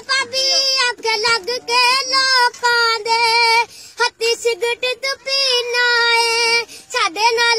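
A high voice singing a Punjabi folk song unaccompanied, holding long wavering notes in phrases of about a second each with short breaks between.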